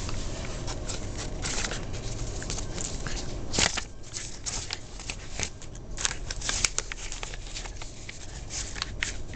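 Paper crinkling and rustling as a dog chews and tugs at a sheet of paper held in its mouth: irregular crisp crackles, the loudest a few seconds in.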